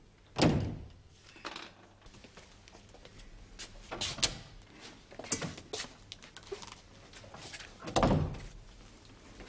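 Household handling noises: a heavy thud about half a second in, then scattered light knocks and clicks as clothes and objects are packed into a bag, and a second heavy thud near the end.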